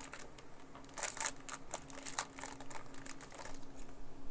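Foil Pokémon booster-pack wrapper crinkling in short crackly bursts as it is peeled open and the cards are pulled out.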